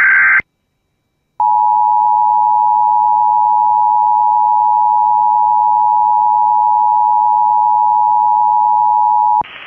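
Emergency Alert System alert: the end of a data burst from the alert header, about a second of silence, then the two-tone EAS attention signal held steady for about eight seconds before the warning is read.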